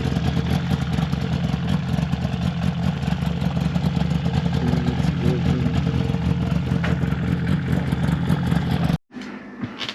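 Snowmobile engine running steadily while riding. The sound cuts off suddenly about nine seconds in.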